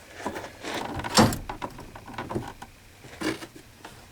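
Irregular knocks and clanks of a wrench and swivel socket working on a stubborn truck door-hinge bolt. The loudest knock comes about a second in, and a smaller one comes near three seconds.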